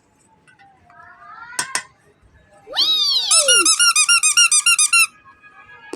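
Baby toy giving squeaky electronic sound effects: a faint wavering tone and two clicks, then a loud falling whistle-like glide and a fast, even warbling trill that cuts off suddenly.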